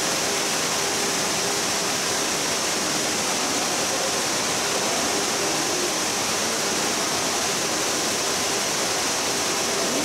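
Large tiered waterfall pouring over a broad rock face: a steady, unbroken rushing of falling water.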